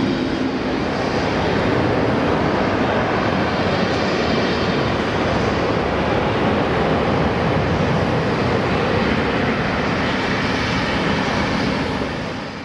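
Boeing 747-8F's four GEnx-2B jet engines running, a loud steady roar that fades out near the end.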